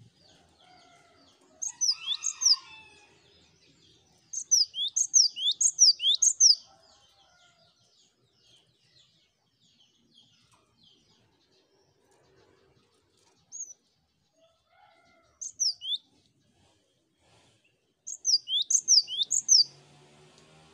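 Cinereous tit (gelatik batu) singing: runs of sharp, high, downward-sliding whistled notes, several a second, in bursts of one to two seconds with pauses between and a few single notes in the gaps.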